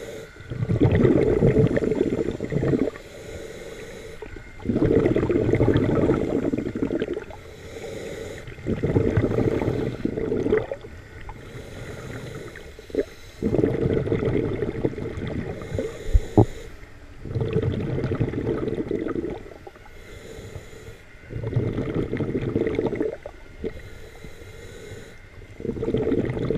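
Scuba diver breathing through a regulator: a burbling rush of exhaled bubbles about every four seconds, with quieter inhalations between, and a sharp click about sixteen seconds in.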